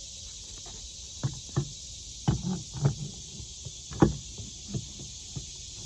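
Irregular knocks and clunks, about a dozen, the loudest about four seconds in, as the float and its fitting on a livestock water tank are handled and reattached. Steady insect chirring runs underneath.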